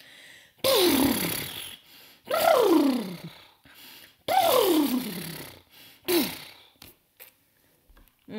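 A woman's voice imitating a horse's whinny: four hoarse, falling neighs about a second apart, each dropping steeply in pitch, the last one shorter.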